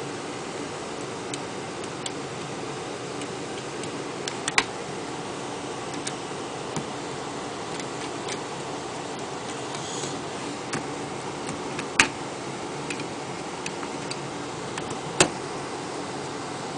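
Scattered sharp clicks and taps of a hard drive caddy and its screws being handled and seated in a Macintosh Performa, three of them much louder than the rest, over a steady low hiss.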